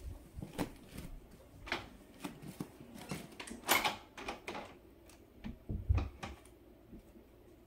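Irregular clicks, taps and rustles of something being handled close to the microphone, with the loudest rustle a little under four seconds in and a low bump about six seconds in.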